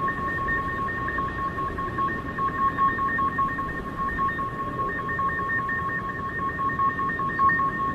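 A steady, electronic-sounding drone made of two held tones, one mid-pitched and one higher, each fluttering rapidly, over a rough low rumble.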